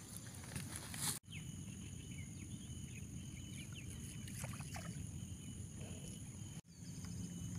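Faint outdoor ambience on a river: a low steady rumble, a steady high insect drone and a few short bird chirps. The sound cuts out for an instant twice, about a second in and near the end.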